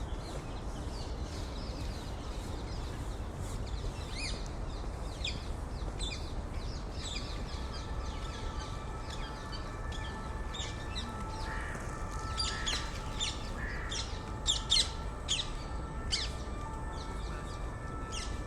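City-park ambience: small birds chirping in short, scattered calls over a steady low rumble of distant city noise. The chirping thickens and grows louder a little past the middle.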